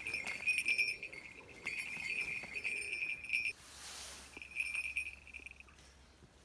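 Young bald eagle giving its high, thin chittering call in quick repeated notes, with a brief rush of rustling noise about three and a half seconds in. The calling picks up again for a moment around five seconds and then stops.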